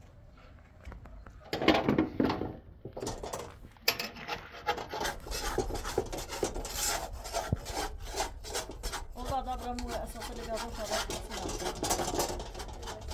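Metal spatula scraping and rasping against an iron griddle as a flatbread is loosened and worked over a wood fire, in many short strokes, loudest about two seconds in.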